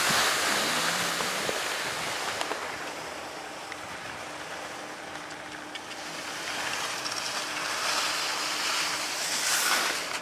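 Rushing hiss of skis sliding and scraping over packed snow, mixed with wind on the microphone; it is loudest at first, eases off in the middle and swells again near the end.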